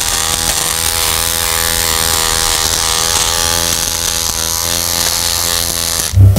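Small electric hair trimmer buzzing steadily while held to the face. It cuts off abruptly near the end, and a loud bass-heavy music beat comes in.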